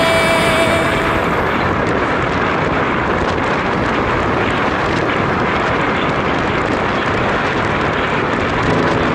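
Steady rush of wind over the microphone on a fast road-bike downhill descent.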